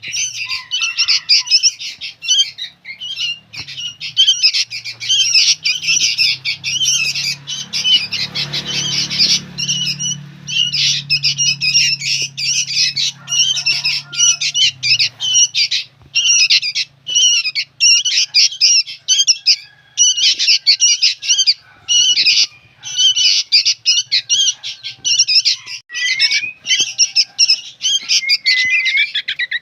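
Young sooty-headed bulbul calling noisily and without let-up, a fast run of harsh, chattering notes with only brief pauses.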